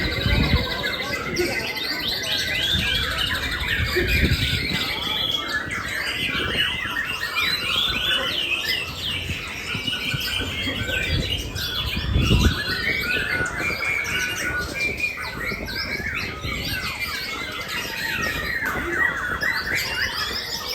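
Many caged songbirds singing at once: a dense, overlapping mix of chirps, trills and squawks. A few dull low thumps occur near the start, around four seconds in and around twelve seconds in.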